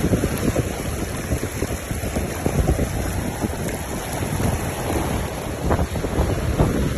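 Wind buffeting the microphone in uneven gusts over the rush of water and wake foaming along a sailboat's hull as it sails through choppy open sea.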